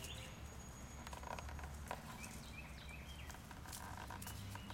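Quiet outdoor ambience of chocolate Labrador puppies moving about in dry grass, their paws rustling and pattering with scattered light clicks. A faint bird chirps repeatedly in the background over a steady low hum.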